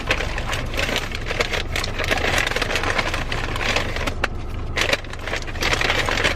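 Paper fast-food bag and wrappers rustling and crinkling as they are handled, with a steady low rumble underneath.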